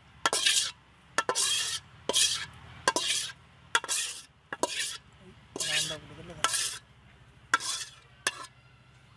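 A spoon scraping around a cooking pot in repeated strokes, a little over one a second, stirring curry.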